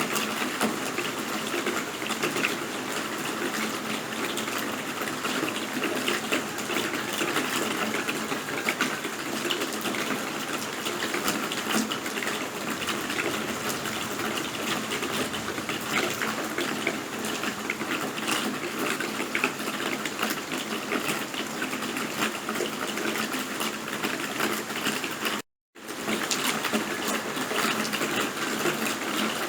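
Steady heavy rain, a dense hiss of falling water with fine patter of individual drops. It cuts out completely for a split second near the end, then resumes.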